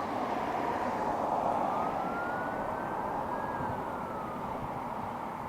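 A siren wailing, its pitch slowly rising and then falling, over a steady hiss of background noise.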